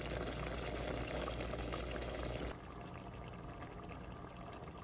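Meatballs in tomato sauce simmering and bubbling in a pot on the stove, a steady bubbling noise that turns quieter about two and a half seconds in.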